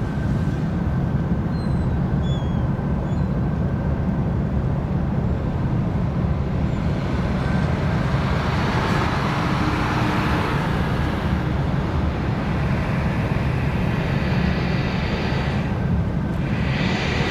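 Steady low rumble of the car ferry Osado Maru's engines and machinery, heard from its upper deck. A broad rushing noise swells for a few seconds about halfway through.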